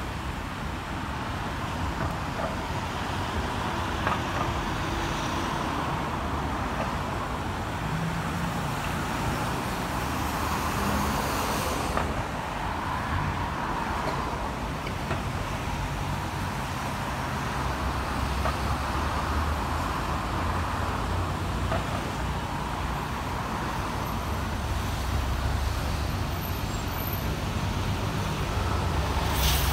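Steady road traffic on a wet road: cars, vans and motorcycles driving by, a continuous rumble and tyre noise that swells a little as heavier vehicles pass.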